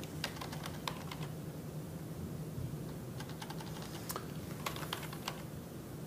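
Typing on a computer keyboard: quick runs of keystrokes, one in the first second or so and another from about three to five seconds in, over a low steady hum.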